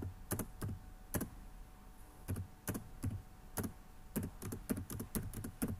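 Keys of a computer keyboard pressed one at a time at an uneven, unhurried pace, typing out a word letter by letter, with a pause of about a second near the start.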